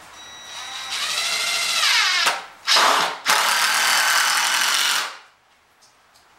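Impact driver driving a long screw into a wooden platform frame: the motor winds up rising in pitch, breaks off twice briefly, then runs in a long loud burst that stops suddenly about five seconds in.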